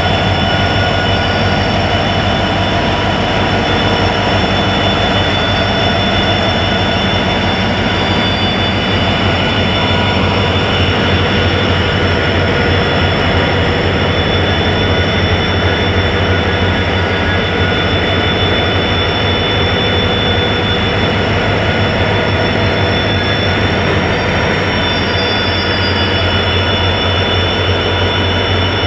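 Steady hum and whine of EMD WDG4D and WDG4 diesel locomotives working together on a goods train, over the rolling noise of the train.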